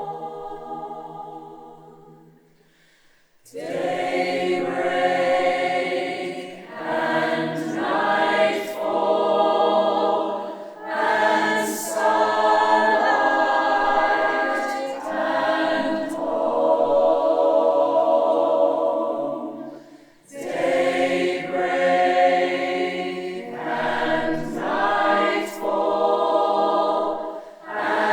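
A choir singing in chords. A held chord fades out over the first few seconds, and after a brief pause the voices come back in together, with a short break about two-thirds of the way through.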